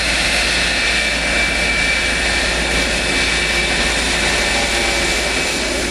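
F-104 Starfighter's General Electric J79 turbojet running as the two-seat jet taxis past, a steady loud rush of jet noise with a high, even whine.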